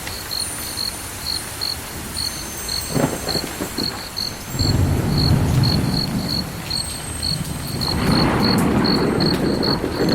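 A cricket chirping steadily, one short high chirp repeating two to three times a second. A low rumbling noise like distant thunder swells in about halfway through and again near the end.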